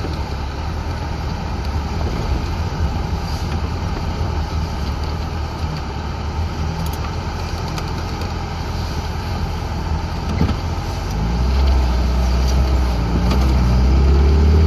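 Suzuki Samurai's four-cylinder engine running and its tyres rumbling over a dirt track, heard from inside the cab. The engine note grows louder and heavier about eleven seconds in.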